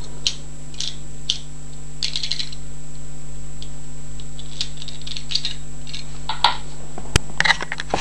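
Small metal clicks and rattles from a cutaway Belfry lever padlock being handled after picking, scattered through, with a cluster of sharper clicks near the end, over a steady low hum.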